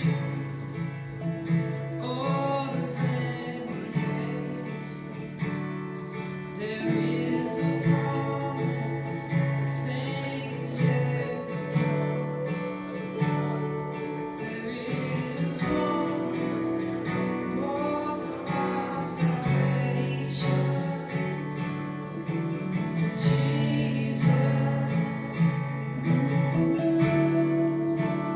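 Church worship music led by a strummed acoustic guitar, with steady low notes underneath.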